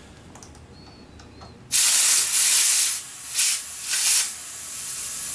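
Compressed air hissing from an air hose as a freshly plugged tire is inflated. It starts suddenly about two seconds in, with two brief louder bursts, then settles into a steady hiss.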